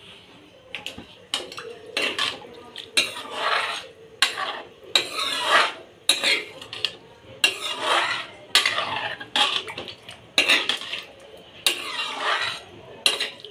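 A steel spoon stirs and scrapes around a metal kadai holding a thin, watery curry of dried greens, in a long run of irregular scraping and clinking strokes.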